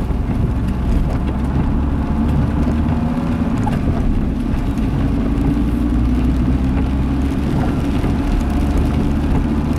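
Car cabin noise while driving on a wet road in rain: a steady low engine drone with tyre hiss.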